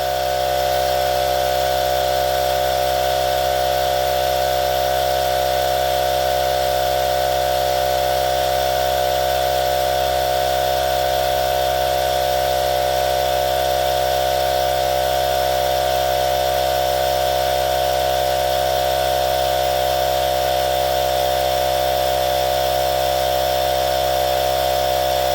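Battery-powered Mellif 2-in-1 portable air compressor (tire inflator) running steadily under load while it fills a low car tire: an even, unbroken motor-and-pump hum with no change in pitch.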